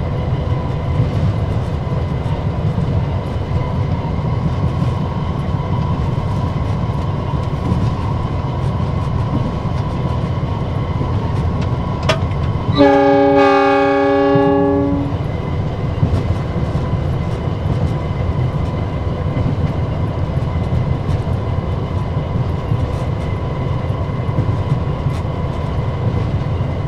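Steady low rumble of a diesel locomotive running along the line. About halfway through, a short click is followed by one blast of the locomotive's multi-tone horn lasting about two seconds.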